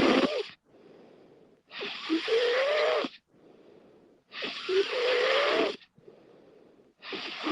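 A woman snoring in her sleep: loud snores about every two and a half seconds, each with a rising pitch inside it, and quieter breaths between them.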